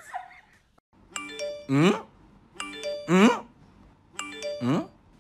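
A short looped sound clip, added in editing, repeating four times about every second and a half: a doorbell-like chime of short stepped tones, then a loud rising, voice-like glide.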